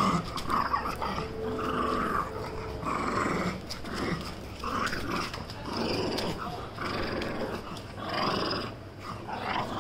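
A pug growling in short, repeated bouts while play-fighting, mouthing and pawing at a person's slipper.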